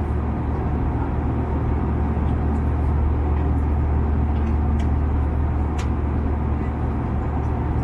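Airbus A320 cabin noise: a steady low drone, with a faint click about six seconds in.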